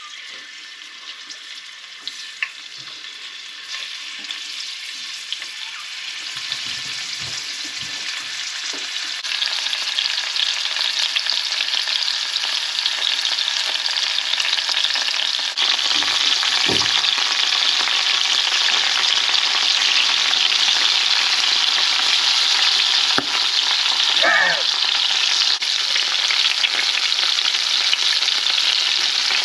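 Pieces of mamushi (Japanese pit viper) and sliced garlic frying in shallow oil in a frying pan: a hissing sizzle that grows louder over the first ten seconds or so, then holds steady, with a few light knocks.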